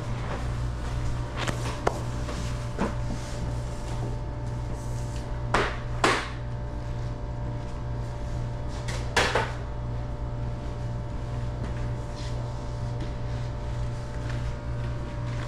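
A steady low machine hum runs throughout, with a few knocks and clunks of equipment being handled over it. The loudest are a pair about five and a half to six seconds in and another about nine seconds in.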